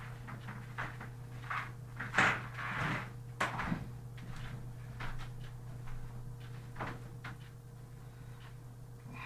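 Young African grey parrot moving about its cage: scattered light clicks and knocks, with a louder rustling clatter between about two and three and a half seconds in, over a steady low hum.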